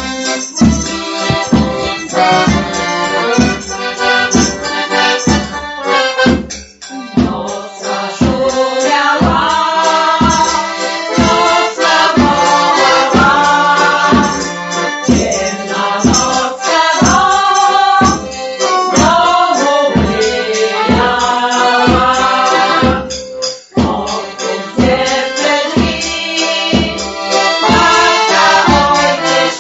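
Polish folk music led by a piano accordion, with a steady beat of about two bass strokes a second under the melody.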